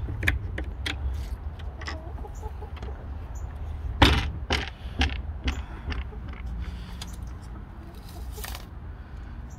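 Hens clucking, with short sharp clicks and knocks scattered through; the loudest comes about four seconds in.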